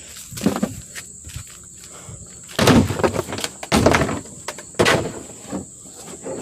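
A few dull thumps, three louder ones about a second apart in the middle.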